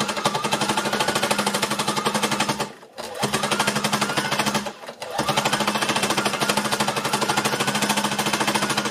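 A 12-needle embellishing (needle-felting) machine running, its unthreaded needles punching rapidly through net and fabric scraps in a fast, even clatter over a steady motor hum. It stops briefly twice, about three seconds in and again about five seconds in.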